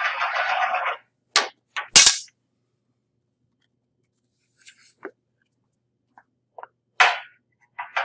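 A ball rolling down a ramp, a steady rolling noise growing louder that stops about a second in. Roughly half a second later comes a sharp knock as it lands on the floor after falling off the table, then two more knocks. Scattered light clicks follow, with another sharp knock near the end.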